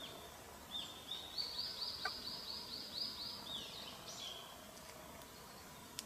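Thrush nestlings begging: a rapid run of high, arching chirps, about four a second, starting about a second in and ending after about three seconds.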